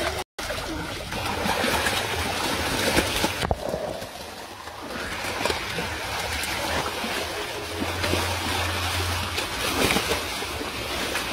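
Water splashing and churning as a mass of large fish thrash at the surface inside a net being drawn closed in shallow water.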